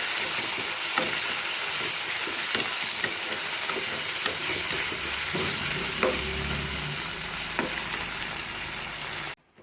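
Onion, garlic and tomato sautéing in sesame oil in a pan, with a steady sizzle and a spoon stirring and knocking against the pan now and then. The sound cuts off suddenly near the end.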